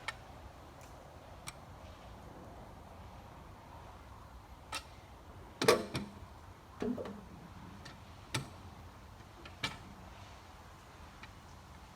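Scattered light knocks and clicks, about eight in all and the loudest a little before halfway, over a low steady hum.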